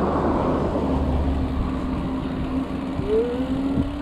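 Mountain bike rolling fast on pavement: wind rush on the camera's microphone and tyre noise, with a steady hum.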